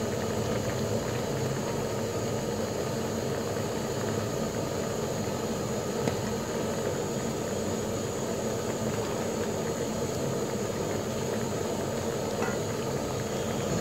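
A pot of water with onions, garlic and whole tomatoes simmering on the stove, giving a steady low rumbling hiss; the tomatoes are being softened in it so their skins will come off.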